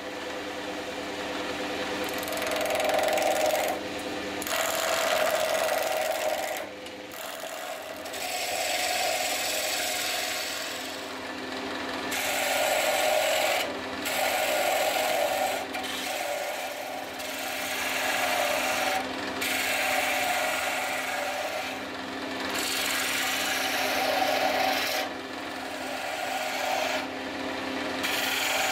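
Wood lathe running with a steady motor hum while a hand-held gouge cuts a spinning spalted horse chestnut blank. The scraping cut comes in repeated passes of one to three seconds, with short breaks between them.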